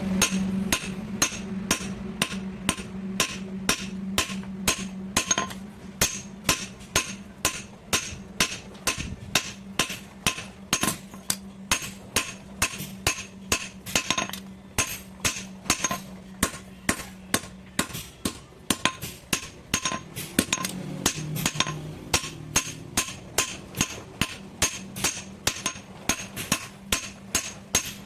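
Hand hammer striking metal in a steady rhythm, about two blows a second, each with a short metallic ring. This is a blacksmith working the sheet metal of a small vegetable sieve.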